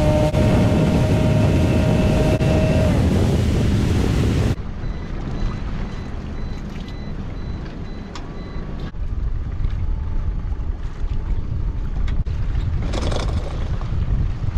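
Evinrude outboard motor running at speed with wind and rushing water, its note dropping slightly about three seconds in. After an abrupt cut, quieter wind and lapping water with a few knocks, and a brief splash near the end as a crab pot comes up over the side.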